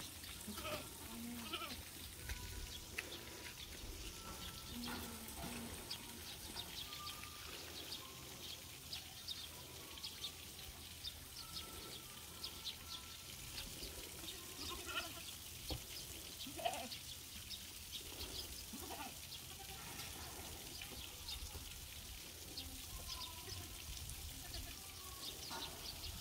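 Goats bleating faintly now and then, with many small scattered clicks and taps.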